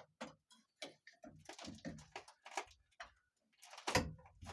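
Irregular clicks, taps and scrapes of a tool working at a car door's window crank, prying at its retaining clip to pop the crank off the shaft. A louder scrape comes near the end.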